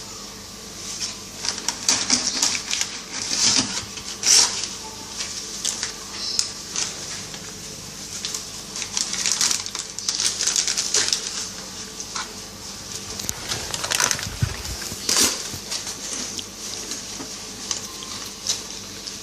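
Plastic bag crinkling and rustling in irregular bursts as a cat with its head stuck inside it moves about, with a heavier thump about fifteen seconds in.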